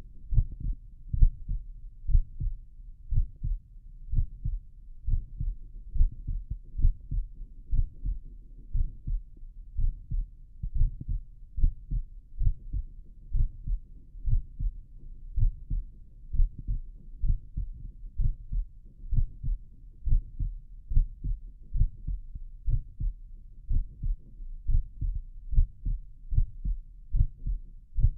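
A person's heartbeat heard through a stethoscope on the chest, lying in the left lateral decubitus position: a steady, regular lub-dub of paired dull thumps, about one beat a second.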